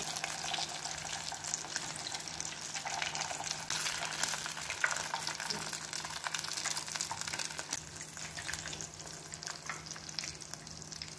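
Hot oil sizzling and crackling as breaded cheesy potato-chicken balls deep-fry in a pot, a fine dense crackle that eases somewhat in the second half.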